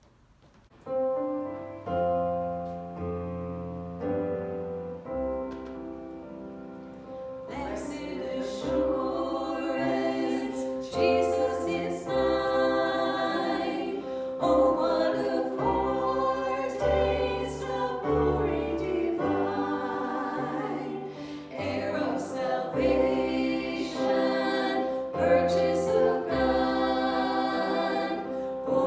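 Christian worship music: an instrumental introduction of held chords starts about a second in, and a group of singers joins at about seven seconds, singing over the accompaniment.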